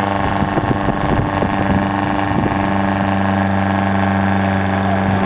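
Small off-road 4x4's engine held at steady high revs while the vehicle is bogged down in a deep mud pit, with scattered knocks and splashes in the first half.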